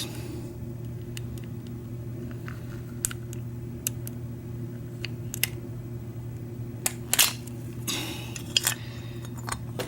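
Scattered light metal clicks and scrapes as a Schlage F-Series knob lock is worked apart with its knob removal tool, over a steady low hum.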